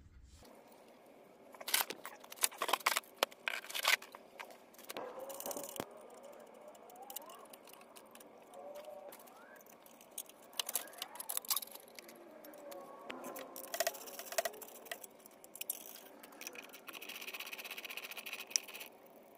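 Hand tools working loose the exhaust mounting bolts of a motorcycle, played back fast-forwarded: a quick run of metal clicks, clinks and rattles, with short sped-up mumbles between them.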